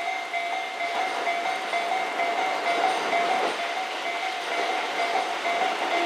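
Japanese railway crossing's warning bell ringing in a steady, quick ding-ding repeat, over the rushing noise of a train on the line that grows a little louder near the end.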